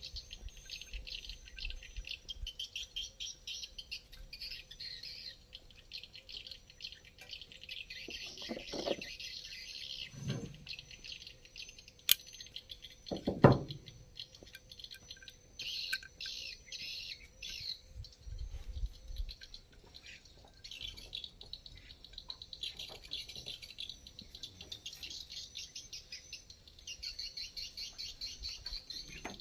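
Birds chirping rapidly and high-pitched in bouts that come and go, with a few knocks and clicks from handling tools or parts, the loudest knock about thirteen seconds in.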